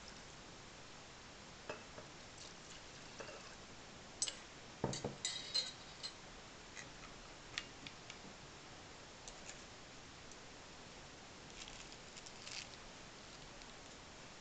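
Sparse clinks and taps of glass laboratory beakers and a glass stirring rod on a wooden table. About five seconds in comes a dull thump and a quick run of sharp clinks, with a few softer taps later on.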